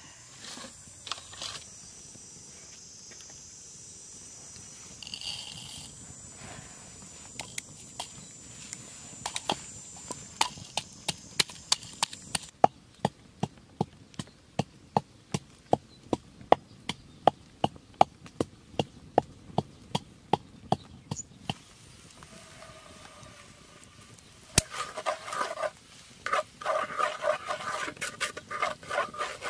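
A pestle pounds in a mortar with sharp, regular knocks, about two a second, for around a dozen seconds. Near the end, ingredients sizzle in hot oil in a metal wok and are stirred.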